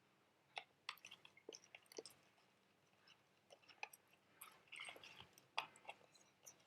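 Faint, irregular clicks and gritty scraping of a spoon stirring salt and washing powder into water to dissolve them.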